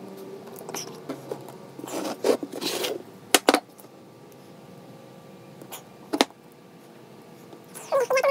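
A stained glass panel being handled on a wooden workbench: scraping as it slides, then a few sharp knocks and taps as it is lifted and tilted up on its edge, with a short burst of scraping and knocking near the end.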